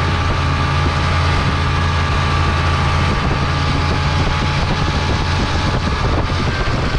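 Snowmobile engine running at a steady speed while riding: a low drone with a steady higher whine over it.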